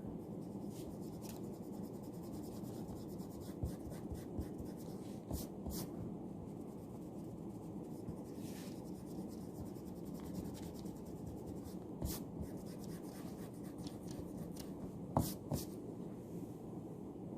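Pencil or pen scratching on paper while working through a math paper, over the steady low hum of a library room, with a couple of small sharp knocks near the end.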